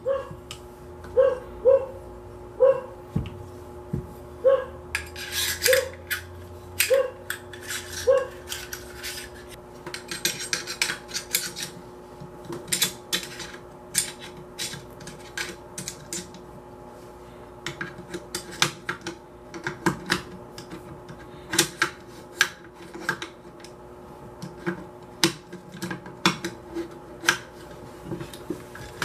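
Metal parts of an AR-15 clicking, clinking and rubbing as the bolt carrier group and charging handle are handled and worked by hand, in irregular sharp clicks and short rattles. Short high chirps repeat about once a second through the first eight seconds.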